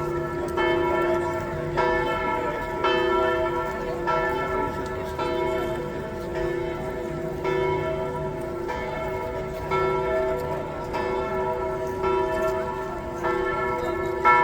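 Church bells ringing, a fresh stroke about once a second, each tone ringing on and overlapping the next.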